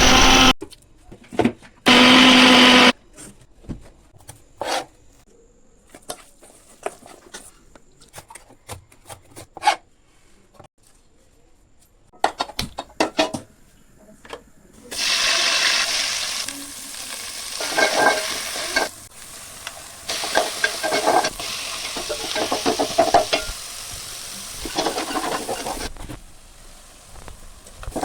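Food sizzling and frying in a hot pan, with a utensil scraping and stirring through the second half. Before that come scattered clicks and knocks of kitchen utensils, and a loud buzzing hum lasting about a second near the start.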